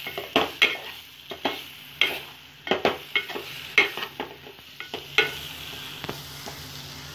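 Steel ladle scraping and clinking against a metal pot as vegetables are stirred and sautéed in oil with masala powder, irregular strokes a couple of times a second, over a faint sizzle of frying. The masala is being fried until its raw smell goes.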